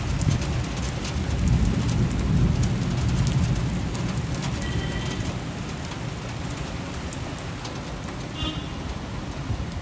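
Steady heavy rain falling on trees and rooftops, an even hiss. A low rumble of thunder runs under it for the first few seconds and fades away.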